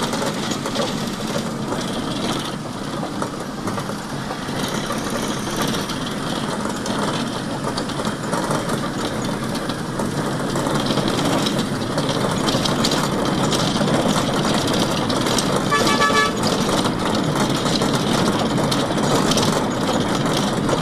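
Road traffic noise: engines and tyres running steadily, with a vehicle horn sounding once briefly about three-quarters of the way through.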